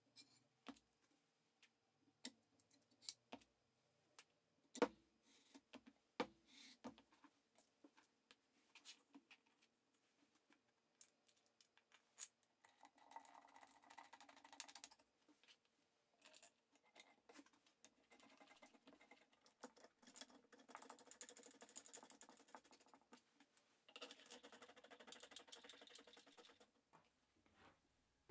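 Faint clicks and knocks as wooden blocks and steel shafts are handled on a work mat. Later come three stretches of soft hissing rattle as plywood-housed linear ball bearings slide along chrome steel shafts.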